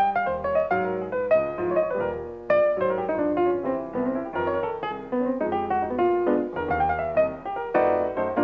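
Piano music: a steady stream of notes with no pause.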